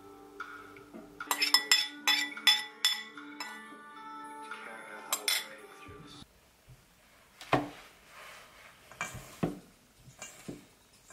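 Sharp clinking of kitchen bowls in a quick cluster over background music. After the music stops about six seconds in, a few softer knocks and rustling as hands rub butter into flour in a stainless steel mixing bowl.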